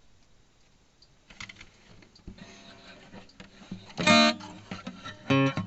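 Acoustic guitar music: a few soft clicks at first, then plucked notes ringing out about four seconds in.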